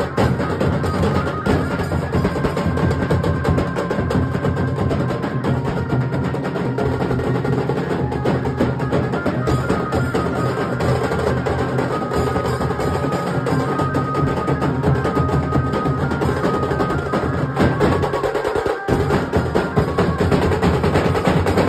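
Nashik dhol ensemble: several large barrel dhols beaten with sticks in a fast, dense, driving rhythm. The deep drum beats drop out for a moment about 18 seconds in, then come back.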